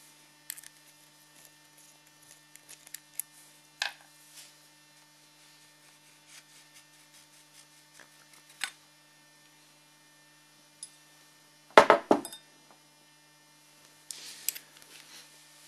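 Metal parts of a DIY PCP airgun being handled while the barrel is taken off the receiver: scattered light clicks, and a short clatter of knocks about twelve seconds in, over a steady low hum.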